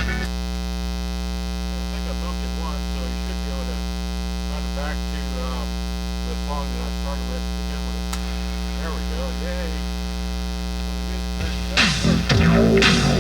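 Boombox speaker putting out a loud, steady mains hum that nearly buries the faint programme audio beneath it, the sign of a bad internal ground. Loud music comes in about twelve seconds in.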